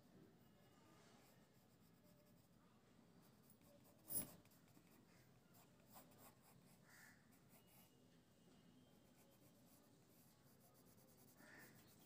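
Faint scratching of a pencil sketching on paper, with one sharp click about four seconds in.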